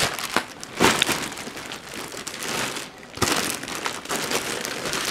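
Clear plastic bag and cardboard-box packaging crinkling and rustling as they are handled, with a few sharper crackles, the loudest about a second in and just after three seconds.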